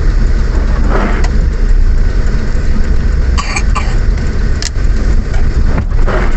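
Inside a moving car: a steady low rumble of engine and road noise, with two short noisy bursts, one about a second in and one near the end.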